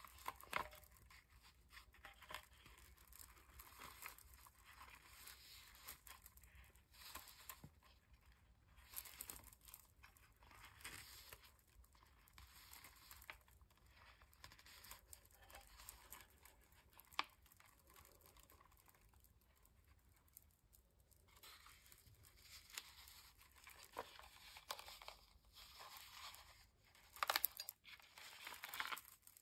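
Faint rustling and scattered light clicks of a small beaded-fringe lampshade being turned and handled, with a sharp click partway through and a few louder handling knocks near the end.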